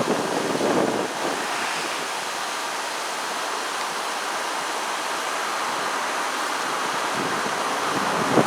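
Goodman heat pump outdoor unit in a defrost cycle, giving off a steady rushing hiss. Wind buffets the microphone near the start and again at the end.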